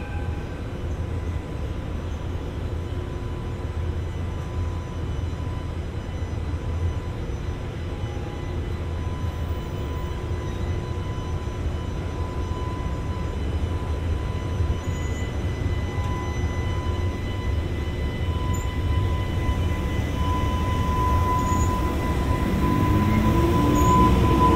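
EH500 electric freight locomotive hauling a container train slowly past, with a low rumble of wheels and running gear that grows louder as it draws level. A steady high whine runs through it and strengthens near the end, where a stepped, rising tone also comes in.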